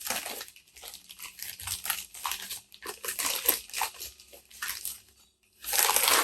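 Packing wrap rustling and crinkling in irregular bursts as a film camera is unwrapped by hand, with a brief pause and then a louder spell of rustling near the end.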